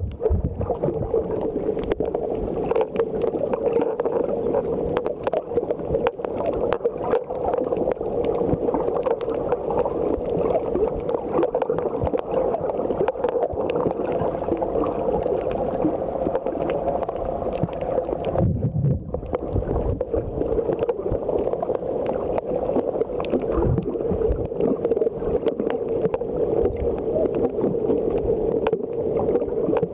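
Underwater sound picked up by a camera in its waterproof housing on a coral reef: a steady, muffled drone with a constant crackle of small clicks. About two-thirds of the way through, the high crackle briefly drops out and a low rumble comes in.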